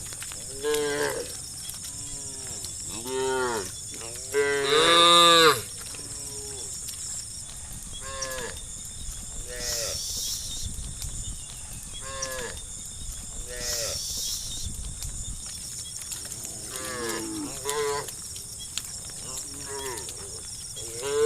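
Cattle mooing, calls from several animals at different pitches one after another, the longest and loudest about four to five seconds in.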